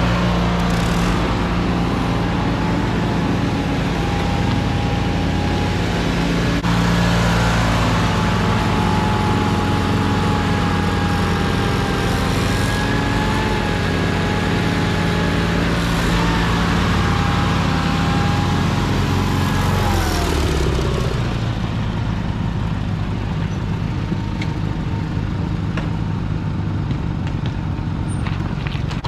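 Riding lawn tractor engines running steadily close by, with a thin whine over the engine note; about twenty seconds in the whine and the engine pitch drop together as the nearer tractor slows.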